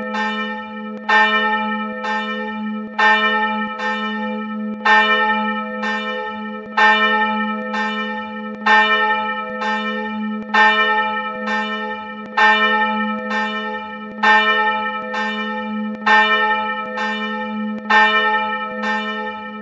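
Single church bell, bell no. 1 of the Wichernkirche in Hamburg, swinging freely with its clapper striking about once a second, louder and softer strokes in turn. A steady low hum rings on beneath the strikes.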